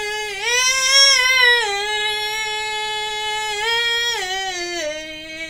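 A female voice singing a long wordless run of held notes. It rises once about half a second in, then steps down in pitch about two seconds in and again near the end.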